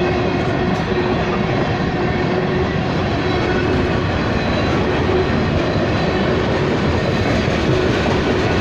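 Norfolk Southern freight cars rolling past close by: a steady, loud rumble and clatter of steel wheels on the rails.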